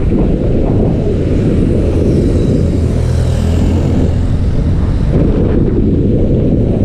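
Heavy wind buffeting on the microphone of a camera on a moving motorcycle, with a steady low engine note coming through in the middle.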